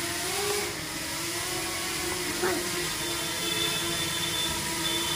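DJI Mini 2 quadcopter hovering, its propellers giving a steady whir whose pitch wavers slightly. A brief sharp sound cuts in about halfway through.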